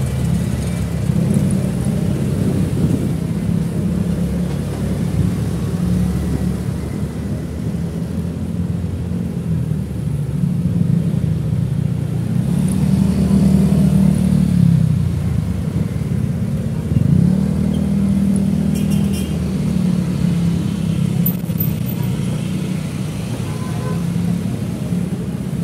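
Motorcycle engine running in slow traffic, its pitch rising and falling a few times as the rider opens and eases the throttle. Surrounding traffic noise runs underneath.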